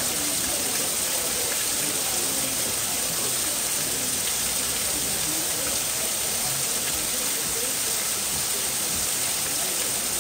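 Steady rushing of water, with faint voices in the background.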